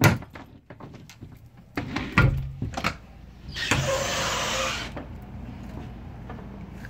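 Balcony sliding glass door being handled and opened: a sharp click at the start, a few knocks about two seconds in, then a rushing noise for over a second, followed by a steady outdoor hiss.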